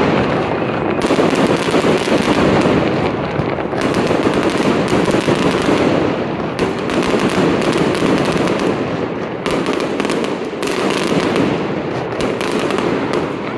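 Fireworks display: aerial shells bursting and crackling in a dense, continuous barrage, the bangs and crackles overlapping without a break.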